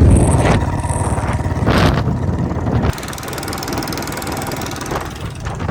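Royal Enfield Bullet BS6 single-cylinder engine running steadily on the move, its sound dropping a step about three seconds in. The owner suspects the engine noise comes from a leaking exhaust bend.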